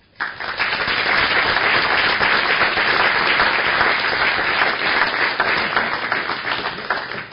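Audience applauding in a hall, a dense patter of many hands clapping that starts abruptly just after the start and dies away near the end.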